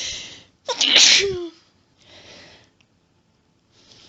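A woman sneezing in an allergic fit: a quick sharp intake of breath, then one loud voiced sneeze about a second in whose pitch falls away, followed by a softer breath and another breath starting near the end.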